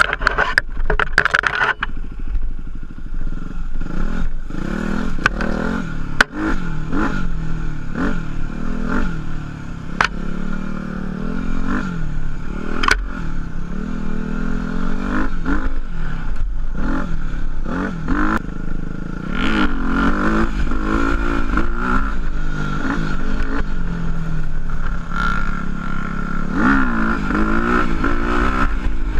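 Single-cylinder four-stroke dual-sport motorcycle engine under way, its pitch rising and falling repeatedly as the rider accelerates, shifts and rolls off the throttle, with a few sharp ticks now and then.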